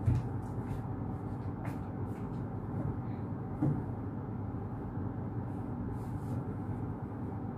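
Steady low hum of a room air conditioner under a bedsheet being pulled and shaken over a bed, with a soft thump right at the start and another about three and a half seconds in.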